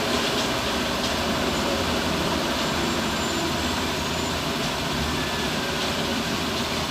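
Heavy diesel machinery running steadily, an excavator or loader working sand into a dump truck, with a constant low engine drone.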